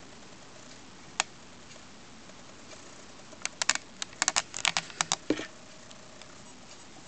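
A single sharp click, then a quick, irregular run of about a dozen sharp clicks and taps over two seconds, like keys being typed, ending in a duller knock. The clicks are loud and close, typical of hands handling the camera or gear.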